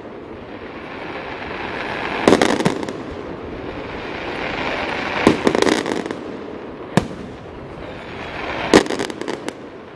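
Fireworks display going off: four loud bangs about two seconds apart, each followed by a few smaller cracks.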